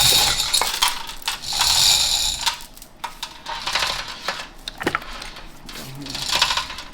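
Metal parts of an NV5600 manual transmission clinking, rattling and scraping as it is taken apart, with several sharp knocks along the way.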